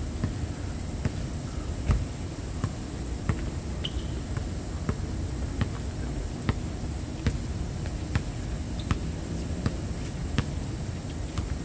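Basketball bouncing on an outdoor hard court during play: sharp thuds at uneven spacing, sometimes two or three a second, the loudest about two seconds in, over a steady low rumble.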